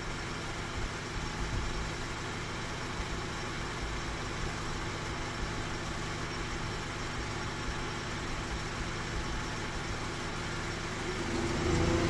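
Honda Civic engine idling steadily with the A/C switched on while the A/C compressor is not engaging; it grows a little louder near the end.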